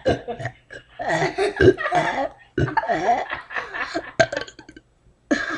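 A child burping on purpose, in two long drawn-out stretches with laughter mixed in, then a brief pause near the end.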